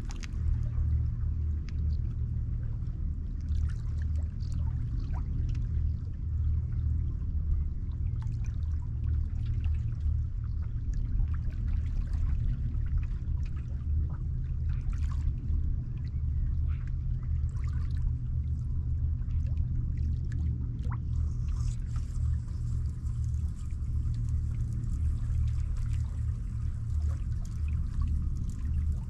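Gentle ripples lapping and trickling among the rocks at the water's edge, a scatter of small splashes and drips over a steady low rumble.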